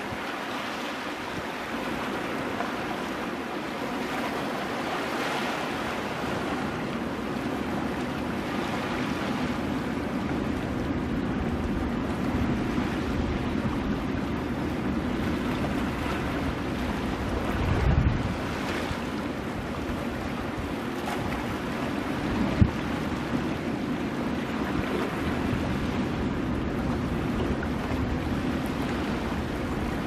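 Ocean surf washing in and breaking on rocks, a steady wash of waves. A low thump comes a little past halfway, and a short sharp knock about three-quarters of the way through.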